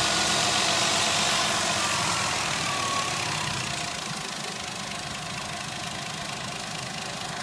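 2003 Ford Escape engine running at a raised idle that gradually drops, getting quieter over the first few seconds and then holding a steady idle. The idle hangs high when it shouldn't, which the owner suspects is a vacuum leak.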